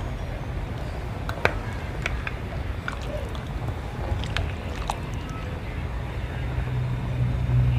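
Metal ladle stirring fish and sauce in a steel cooking pot, with a few light clinks and taps against the pot over a steady low rumble.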